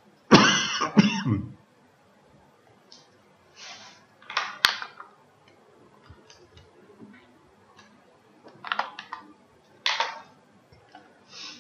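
A man clearing his throat and taking short, noisy breaths in scattered bursts, with two sharp clicks, one near the start and one about four and a half seconds in.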